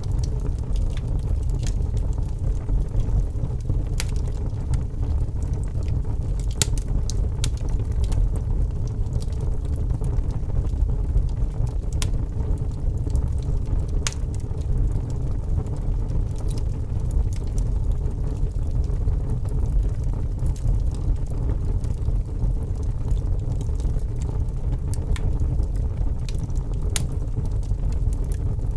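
Fire burning: a steady low rumble with irregular sharp crackles and pops scattered through it.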